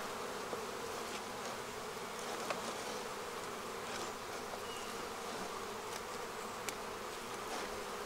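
Steady buzzing of a honeybee colony in an open hive, with a few faint clicks from a metal hive tool scraping the frame top bars.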